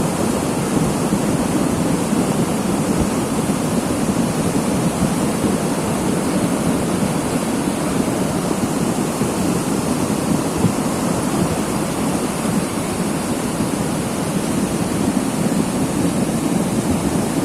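A creek in flood: a loud, steady rush of fast, churning floodwater.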